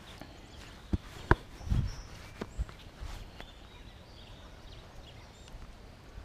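Golf club striking a ball off the tee: one sharp crack a little over a second in, with a few smaller clicks and a low thud around it, and faint birds chirping.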